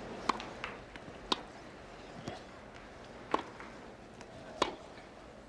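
Tennis ball struck back and forth by rackets in a rally: four sharp pops about one to two seconds apart, with a softer one about two seconds in.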